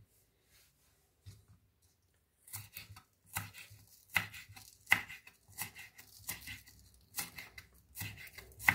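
Kitchen knife slicing a green onion on a wooden cutting board: a few faint knocks, then from about two and a half seconds in a run of sharp cuts against the board, roughly two a second.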